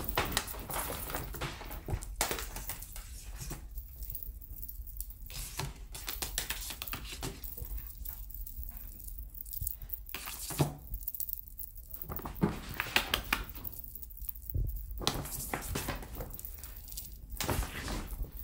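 Irregular rustling, scuffing and light thumps as a Maine coon kitten pounces and bats at a feather wand toy on a backdrop.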